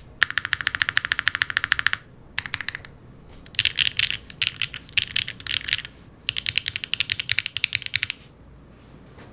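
Fast typing on a mechanical keyboard fitted with HMX Cosmic Purple factory-lubed linear switches, an aluminium plate, no foam and ABS doubleshot keycaps. The keystrokes come as rapid clacking runs in four bursts and stop shortly before the end.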